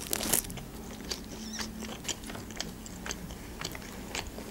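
Close-miked mouth sounds of someone chewing a bite of pide (Turkish flatbread pizza): soft, wet clicks and smacks at irregular intervals. The loudest smack comes just after the start.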